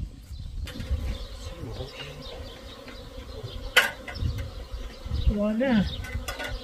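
Honeybees buzzing at the entrance of a wooden hive box, a steady hum as they come and go, with a sharp click a little before the middle.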